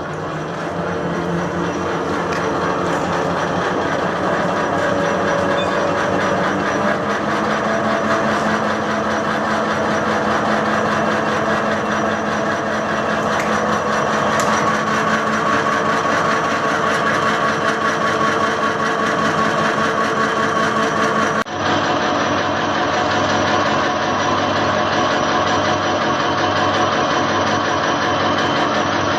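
Motor-driven liquid-soap mixer machine running steadily under test, a continuous machine hum with steady pitched whine, growing louder over the first few seconds, with a brief dip about three-quarters of the way through.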